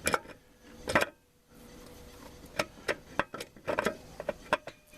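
Light metal clicks and knocks of transmission parts being handled and fitted inside a 4L60E automatic transmission case, about seven sharp separate clicks.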